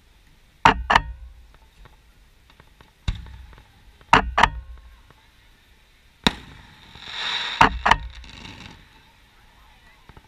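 Aerial fireworks shells bursting: about eight sharp bangs, several in quick pairs. Past the middle comes a crackling hiss lasting about two seconds.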